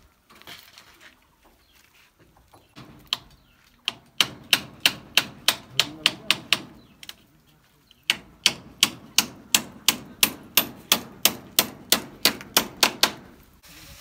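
Claw hammer nailing a green bamboo pole to the wooden frame of a bamboo shed wall: a few knocks, then two long runs of steady, evenly spaced hammer blows, about three to four a second, with a short pause between them.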